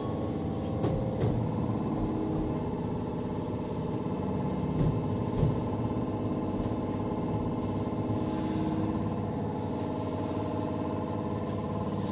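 Tokyu 8500 series electric train standing at a platform, its onboard equipment giving a steady, many-toned hum, with a few light knocks.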